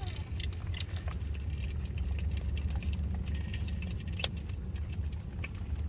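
Garlic and ginger being ground by hand on an ammi grinding stone: irregular clicks and scrapes of the stone roller on the slab, with one sharper knock about four seconds in, over a steady low rumble.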